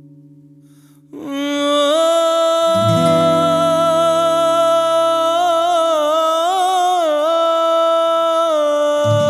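A male voice sings one long wordless held note, entering about a second in as a fading guitar chord dies away. The note bends through ornamented turns in the middle and then settles. A low sustained note from the band comes in underneath.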